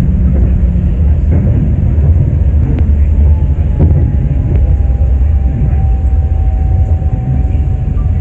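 Airport people-mover train running on its guideway, heard from inside the car: a steady low rumble with a few light clicks. From about three seconds in, a thin whine slowly falls in pitch as the train nears the station.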